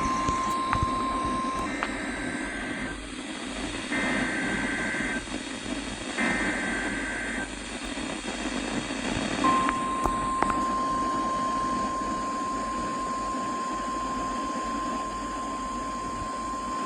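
Emergency Alert System warning on a weather radio: a steady 1050 Hz alarm tone cuts off shortly in, then three one-second bursts of the two-tone digital SAME data header, then the 1050 Hz alarm tone starts again about nine and a half seconds in and holds, over steady radio hiss. The sequence marks a new warning coming through before the voice message.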